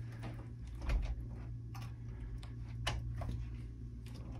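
Irregular light clicks and knocks, about half a dozen, from a phone camera being handled and repositioned, over a steady low hum in the room.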